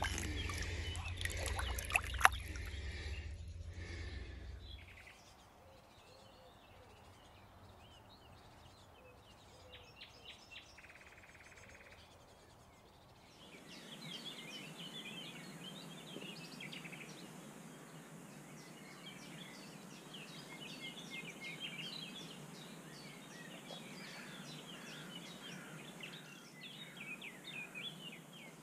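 Water splashing and sloshing as a carp is slid back into the lake from a wet sling, with a low rumble of handling and a couple of sharp clicks, for the first few seconds. After a quiet stretch, many small songbirds chirp and sing together from about a third of the way in.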